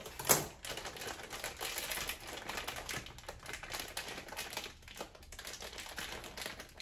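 Kitchen scissors snipping and working in quick, irregular clicks, with a sharp click just after the start.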